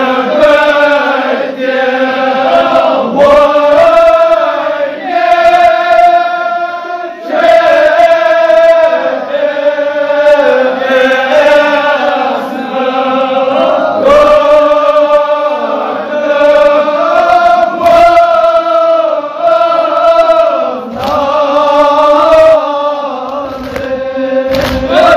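Group of men chanting a Kashmiri marsiya, a Shia mourning elegy, in long held notes that waver up and down. They sing in phrases of a few seconds each, with short breaks between them.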